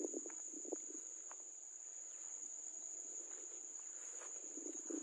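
Steady high-pitched trill of insects. Soft rustling footsteps on dry straw can be heard at the start and again near the end.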